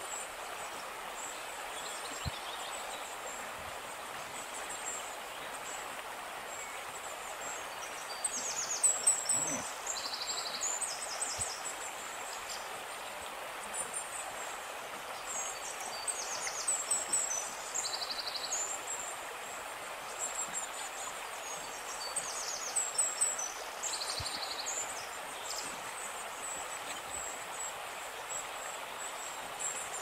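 Birds chirping in short, high, repeated bursts, loudest about nine seconds in and again around sixteen and twenty-three seconds, over a steady rushing hiss of outdoor background noise.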